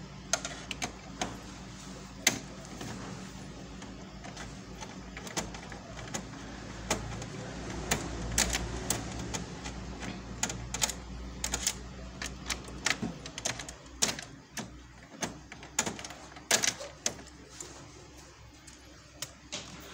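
Irregular clicks and ticks of a screwdriver working the screws and a connector out inside an opened Kyocera ECOSYS M6630 colour laser printer.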